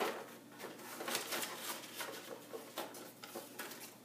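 Paper slips rustling and scraping inside a cardboard 12-pack carton as a hand rummages among them to draw one: a string of soft, irregular crinkles, a little louder at first.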